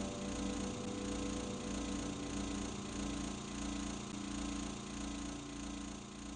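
A low, steady hum with a slow pulse, like a machine running, fading toward the end. A last held musical note dies away about two seconds in.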